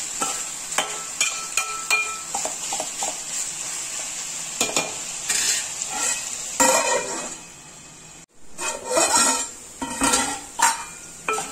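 Masala-coated chicken sizzling in oil in a steel pan while a metal spatula stirs it, scraping and clinking against the pan.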